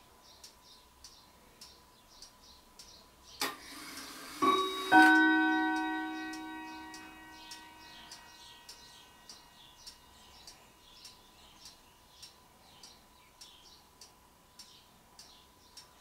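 Faint, steady ticking about twice a second. About four seconds in, a short rustle and two sharp knocks set off a bell-like ringing with several tones that dies away over a few seconds.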